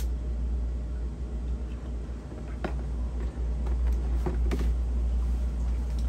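The hiss of water draining from a gas water heater's drain valve cuts off at the start as the valve is closed. A steady low hum follows, with a few faint knocks and clicks as a plastic bucket of drained water is handled.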